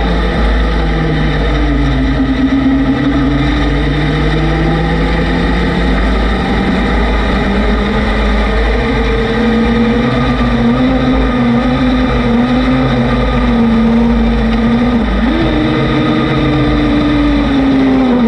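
A vehicle's engine running as it drives, its pitch drifting slowly up and down, then jumping up suddenly about fifteen seconds in, over a heavy low rumble of wind on the microphone.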